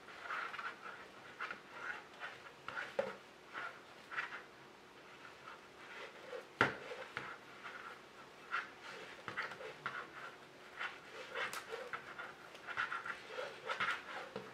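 Knitting needles and wool yarn being worked through purl stitches: soft, repeated scraping strokes, roughly two a second, with one sharp click of the needles a little after halfway.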